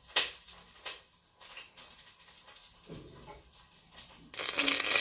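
A knife cutting peeled carrot into sticks on a cutting board: a few sharp, crunchy cuts, the loudest just after the start. About four seconds in, a loud sizzle of an onion frying in oil starts suddenly.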